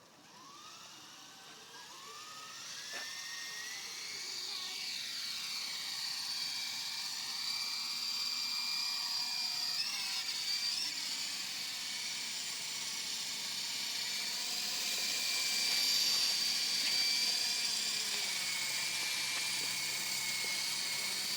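Small RC helicopter's motor and rotors spooling up with a rising whine, then a high whir whose pitch wavers up and down as the throttle changes, settling into a steady whine.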